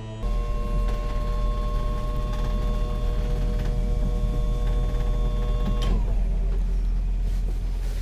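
A river cruiser's inboard engine running: a loud, low, steady rumble with a steady whine over it that slides down in pitch and fades about six seconds in.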